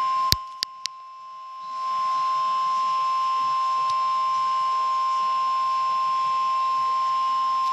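Weather radio warning alarm tone: one long, steady high beep, signalling that a severe thunderstorm warning broadcast is about to follow. A few sharp clicks fall in the first second, and the tone is quieter for a moment before coming back to full level about two seconds in.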